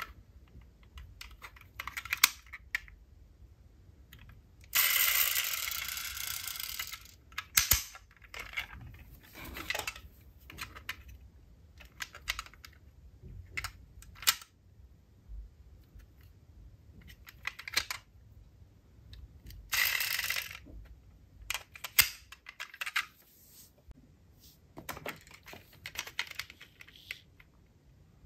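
Small die-cast metal toy cars being handled, giving scattered light clicks and clinks. Two longer stretches of noise, about two and a half seconds starting about five seconds in and about a second near the twenty-second mark, break up the clicks.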